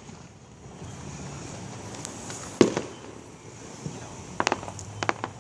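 Aerial fireworks exploding: one loud bang about halfway through, then a quick run of smaller sharp cracks near the end.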